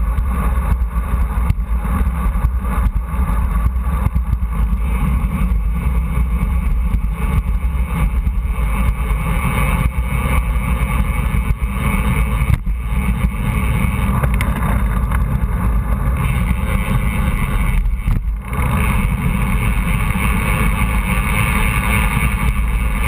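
Steady wind noise on a handlebar-mounted camera's microphone from riding a road bike at speed, with road vibration through the bars.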